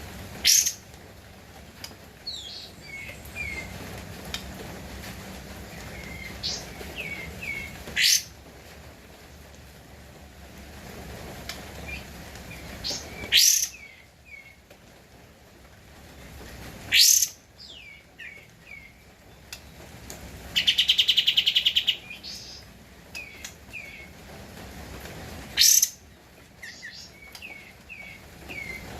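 Kapas tembak bulbul calling: loud, sharp rising single notes every few seconds, with softer short falling chirps between them and one fast buzzy rattling trill about two-thirds of the way through.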